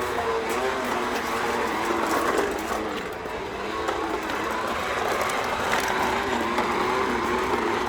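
Battery-powered toy bubble lawn mower running as it is pushed along: a steady motor whir whose pitch wavers slightly, with faint clicking over it.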